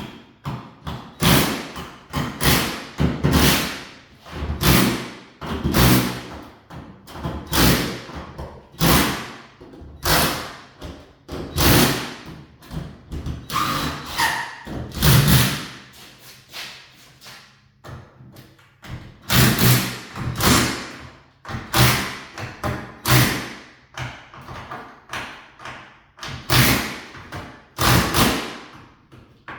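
A long series of hard knocks and thumps, irregular, about one or two a second, each ringing briefly: hands-on work on garage door hardware.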